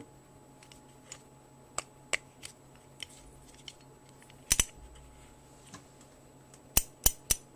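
Draper Expert 45-tooth ratchet clicking as it is worked: scattered single clicks at first, then a run of sharp clicks, about four a second, near the end.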